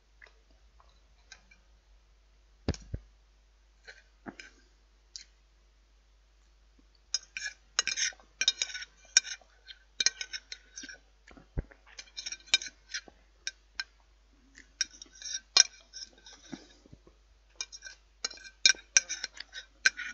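Knife and fork clinking and scraping on a china plate, a few separate clicks at first, then busy clusters of clinks and scrapes from about seven seconds in.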